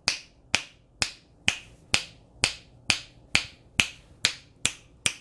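A steady beat of sharp clicks, about two a second, each with a short ringing tail, used as the sound input that drives the blacklight's sound-activated music mode.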